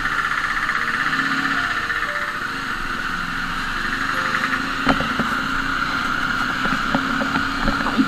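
Jawa motorcycle's single-cylinder engine running at low speed in town traffic, heard from the rider's seat, with a couple of sharp knocks about five seconds in and near the end.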